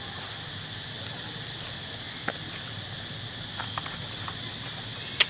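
Steady high-pitched drone of insects, with a few short clicks and one sharp click near the end.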